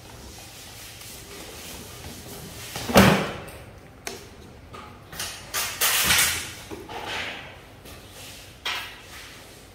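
Knocks and scrapes as monkeys clamber down from plastic chairs at a table: one loud knock about three seconds in, then several shorter bumps and scrapes.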